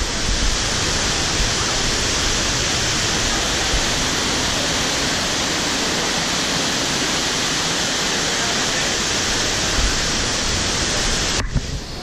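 Steady rush of white water from a fast stream tumbling over rocks below a pair of waterfalls, with a few low thumps of wind or handling on the microphone. It dips briefly near the end.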